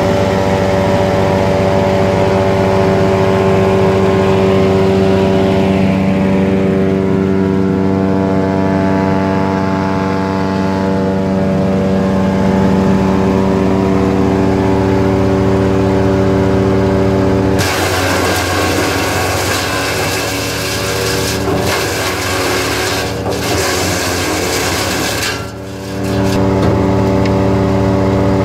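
Tractor engine running steadily, powering a Ceccato Tritone Maxi chipper through its PTO shaft. About two-thirds of the way in, the sound suddenly turns noisier with a broad hiss over the engine note, and it dips briefly near the end.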